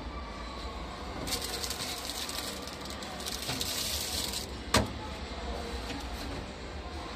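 A rustling scrape lasting about three seconds, then one sharp knock, over a steady low rumble.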